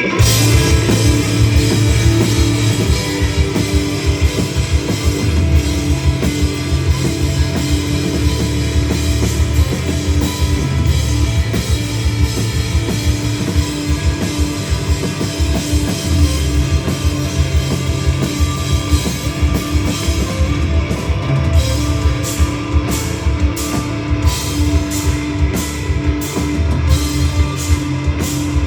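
Live rock band playing loudly: full drum kit, electric guitar and bass come in together at once and carry on at full volume.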